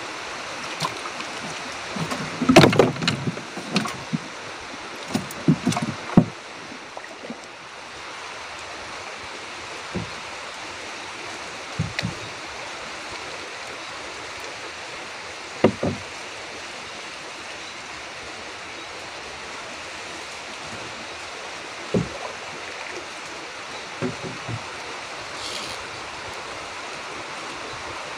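Knocks and thumps against a wooden boat as the angler shifts and handles his gear: a cluster of several in the first few seconds, then single knocks every few seconds, over a steady background hiss.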